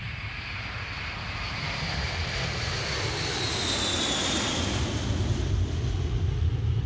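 Boeing 727 jet airliner with its Pratt & Whitney JT8D turbofans: a high whine that slides down in pitch a few seconds in, over a low rumble that grows louder.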